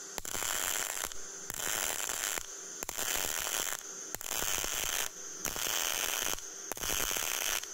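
CO2 semi-automatic welding arc crackling in bursts of about a second, cut off briefly between them about six times. This is the intermittent-arc 'kiri-mori' technique on a vertical fillet weld with solid wire, the arc stopped and restarted to build the bead.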